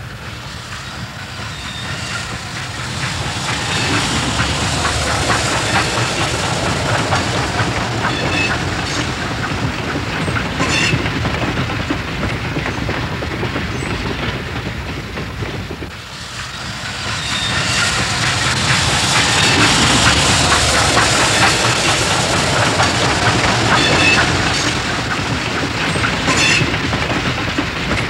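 A Baldwin 2-8-0 steam locomotive and its steel coaches passing close, with steam hissing and steel wheels clattering over the rail joints. The sound swells up, fades about halfway through, then a second pass swells up again.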